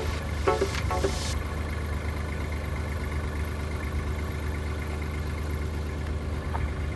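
Tractor engine running steadily with a low, even drone. A bit of music ends about a second in.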